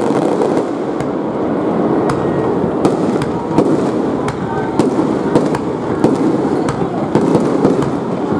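Aerial firework shells bursting one after another: sharp bangs, roughly one or two a second in an irregular rhythm, over a steady murmur of voices.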